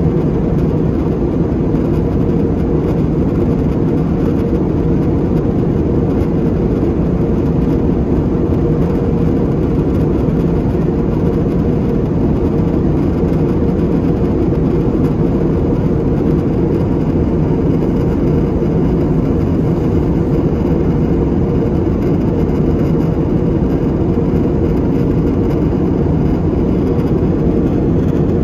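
Steady low drone of jet engines and airflow heard inside the cabin of an Airbus A320-family airliner in flight, unchanging throughout.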